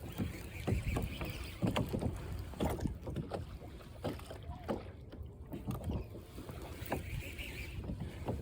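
Water lapping and slapping against the hull of a small fishing boat in irregular splashes, over a steady low rumble.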